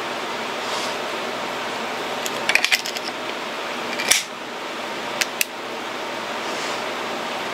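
Small flashlights' push-button tail switches clicking as they are pressed: a quick cluster of clicks, then one sharp click, then two more close together. A steady hiss underlies them.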